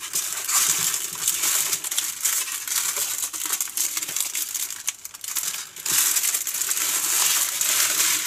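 Small plastic bags of diamond painting drills crinkling as they are handled and laid out on a table, with many small clicks, easing off briefly about five seconds in.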